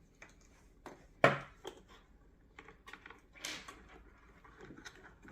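Scattered light clicks and taps of small plastic headlight parts and wires being handled, with one sharper knock about a second in and a short scuff about three and a half seconds in.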